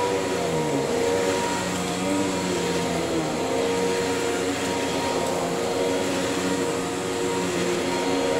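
Tornado CK14/1 commercial upright vacuum cleaner running while it is pushed across a bare floor, a steady motor hum and rush of air whose pitch wavers up and down.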